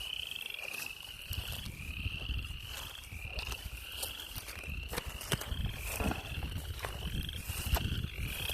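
Frogs calling from a stream: a steady run of short, slightly rising trills, about one a second, overlapping one another.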